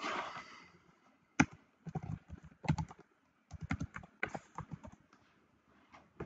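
Computer keyboard typing: short runs of quick keystrokes as a word is typed, with brief pauses between the runs.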